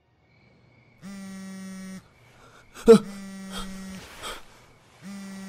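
Mobile phone vibrating in three one-second buzzes, about two seconds apart, an incoming call. A short loud vocal sound, falling in pitch, comes about three seconds in, followed by breaths.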